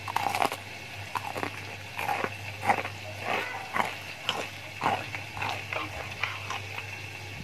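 Crispy, bubbly batter-coated fried chicken crunching: a series of short, irregular crackles, about two or three a second, as the crust breaks.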